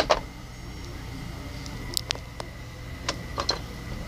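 Small hard-plastic toy figures and toy furniture being handled, giving a few sharp clicks and taps, the loudest right at the start and a cluster about two and three and a half seconds in, over a low steady hum.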